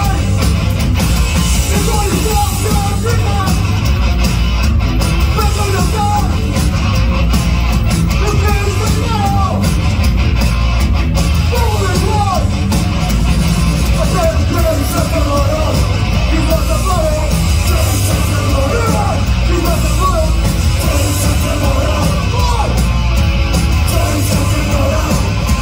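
Punk rock band playing live at full volume: electric guitar, bass and drums driving steadily under a shouted lead vocal.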